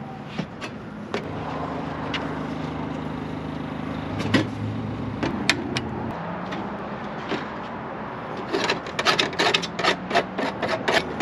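A vehicle engine running steadily, with scattered sharp clicks and knocks, then a quick run of clicks and knocks about three quarters of the way in.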